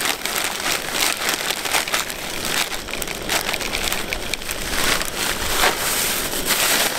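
Plastic bag of frozen mixed vegetables crinkling as the vegetables are shaken out into a skillet, then the empty bag is scrunched up by hand.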